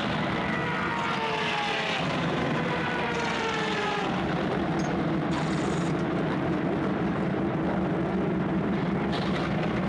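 Racing engines passing at speed on the track, their pitch sliding down as they go by in the first few seconds, then a steady engine drone.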